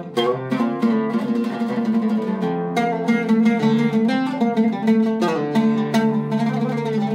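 Iraqi-style oud with a cedar soundboard played solo, plucked with a plectrum: a quick melodic run of picked notes that ring on into each other.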